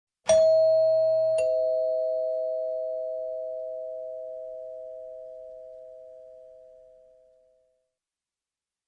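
Doorbell chime sounding a two-note ding-dong: a higher note, then a lower one about a second later, both ringing on and slowly fading out over several seconds.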